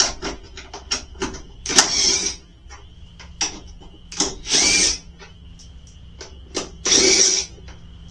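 Power drill run in three short bursts of about half a second each, with sharp clicks between them, as it takes fasteners off the ATV during teardown.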